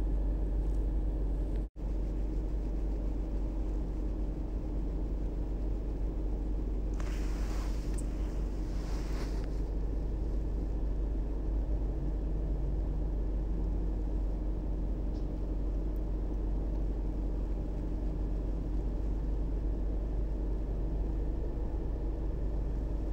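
Corded electric drill running steadily as it bores holes into a brick and stone wall.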